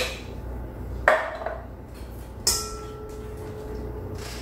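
Two knocks of metal kitchenware about a second and a half apart, the second a metallic clink that rings on briefly.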